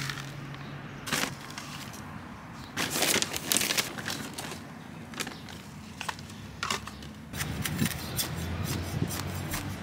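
Gritty potting soil scooped with a plastic soil scoop and poured into a plastic plant pot: a series of irregular rustling, crunching pours and scrapes, busier near the middle and toward the end.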